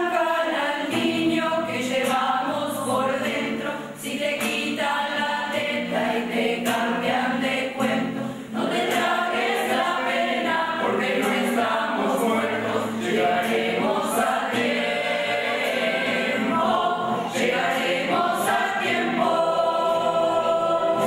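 Choir singing in several voice parts, held chords moving from one to the next without a break.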